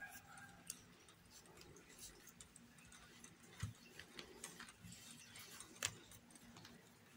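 Near silence with faint, scattered clicks and rustles of a crochet hook working thick t-shirt yarn, with two slightly louder taps about three and a half and six seconds in.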